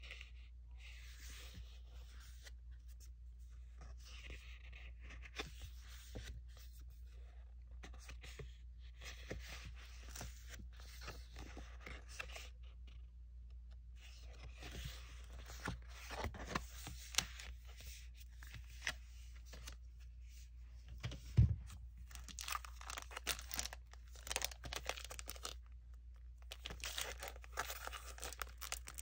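Rustling and crinkling of paper sticker sheets and clear plastic sleeves as they are handled and pages are turned, in irregular bursts with small clicks. There is one sharper knock about two-thirds through and a steady low hum underneath.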